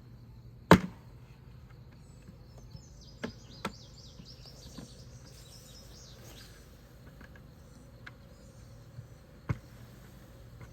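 A sharp loud knock about a second in, then a few lighter knocks, as the bee bucket is knocked to drop the captured honeybee swarm to the bottom. A faint steady buzz of bees runs underneath, with birds chirping in the middle.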